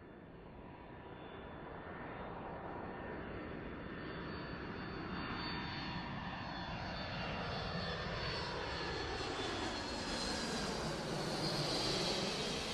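An airplane flying in low, its engine noise growing steadily louder, with a sweeping shift in tone as it comes close.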